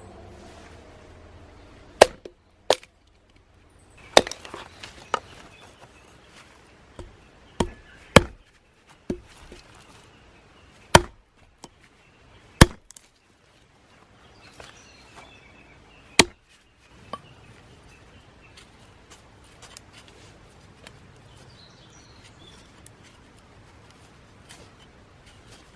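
Hand axe chopping a red pine log into kindling: about ten sharp, separate chops at irregular intervals, most of them in the first two-thirds.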